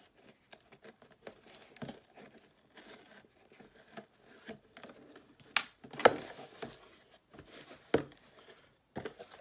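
Cardboard shipping box being torn open by hand: packing tape and flaps ripping, with rustling and scraping of the cardboard. The sharpest rips come about five and a half and six seconds in, and again near eight seconds.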